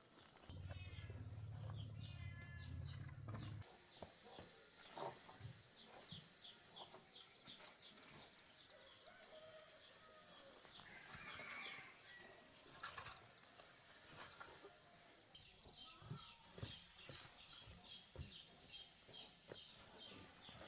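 Quiet background close to silence. A low hum runs for about the first three seconds, then light clicks and knocks come and go, with runs of rapid high-pitched chirping.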